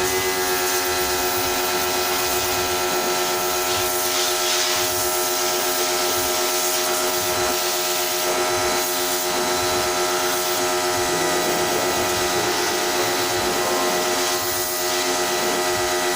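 A motor-driven machine starts abruptly and runs at a steady level: a humming whine with a rushing hiss over it.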